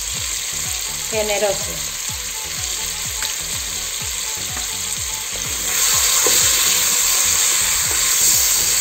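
Whole vegetables (onion, leek, carrots and garlic) sizzling steadily in hot olive oil in a pot, being lightly browned. The sizzle grows louder about two-thirds of the way through as a wooden spoon turns them.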